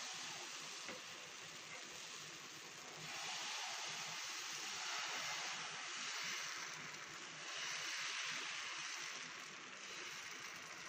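Dosa batter sizzling on a hot tawa as it is poured and spread round with a ladle: a steady hiss that swells louder a few times.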